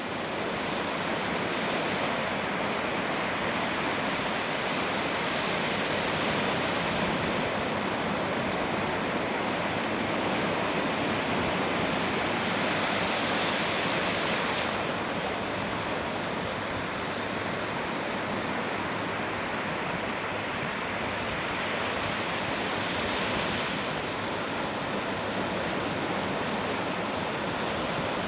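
Ocean surf on a beach: a steady wash of waves, swelling louder a few times as bigger waves break.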